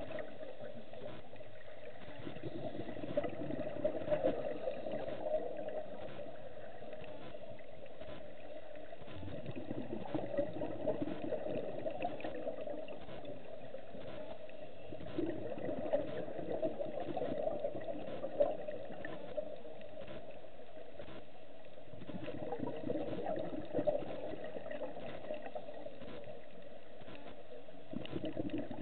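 Scuba divers' exhaled bubbles from their regulators, heard underwater as gurgling bursts every several seconds over a steady muffled hum.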